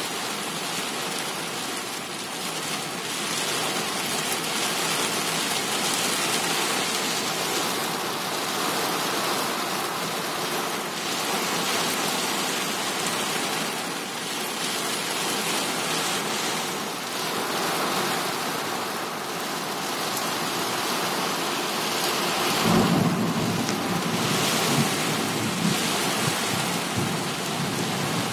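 Heavy rain drumming on a car's roof and windshield, heard from inside the car as a dense, steady hiss. About two-thirds of the way through, a low rumble comes in and swells a couple of times.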